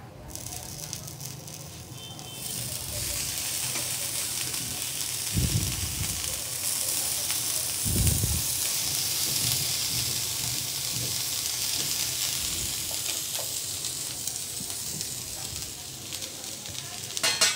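Buttered bread sizzling on a hot iron tawa, a steady hiss that sets in about two and a half seconds in. Two soft low thumps come around the middle.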